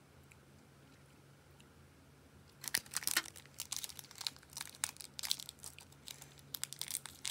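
A faint steady room hum, then from about two and a half seconds in a plastic food wrapper crinkling and tearing as it is opened by hand.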